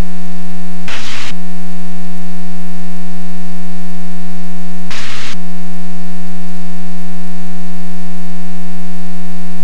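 Loud, steady electrical hum or buzz on the radio and intercom audio feed, holding one pitch with many overtones, broken twice by short bursts of static, about a second in and again about five seconds in.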